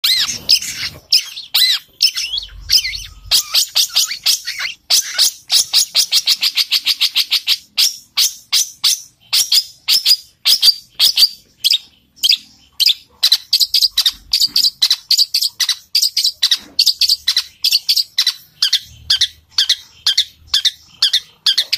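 Long-tailed shrike (cendet) singing a fast, near-unbroken string of sharp, high chirps with only brief pauses, in imitation of house sparrows fighting.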